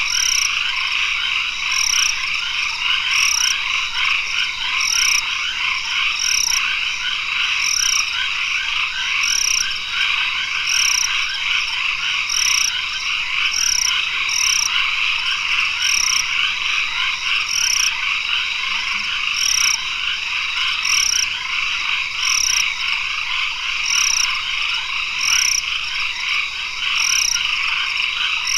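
Tropical forest chorus of frogs calling at dusk: a dense, steady trilling, with a short high note repeating about once a second.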